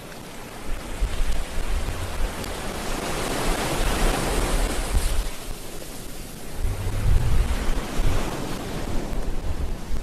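Wind buffeting the microphone in low rumbling gusts over a steady hiss of sea surf, which swells about four seconds in.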